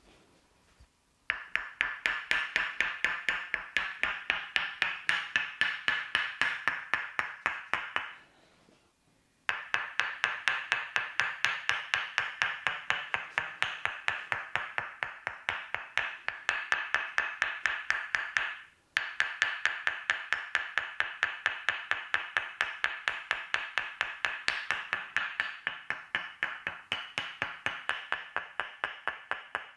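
Tok sen massage: a wooden mallet rapidly tapping a wooden wedge, a ringing, woody knock several times a second in a steady rhythm. The tapping stops briefly about 8 seconds in and again about 18 seconds in, then carries on.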